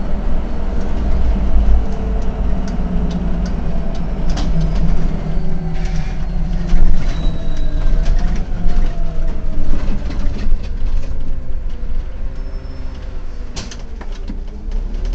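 Autosan M12LF city bus's CNG engine running as heard from the driver's cab, its note sinking through the second half as the bus slows toward a stop, with scattered clicks and rattles from the cab.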